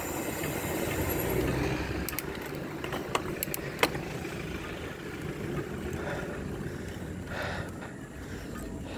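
Wind rushing over the bike-mounted camera's microphone and tyre noise as a bicycle rolls along a concrete road, with a few sharp clicks between about two and four seconds in.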